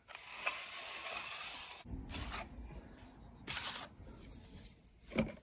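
Steel trowel scraping wet cement render across fibreglass mesh on a chimney: one long scrape, then two shorter strokes, and a sharp tap near the end.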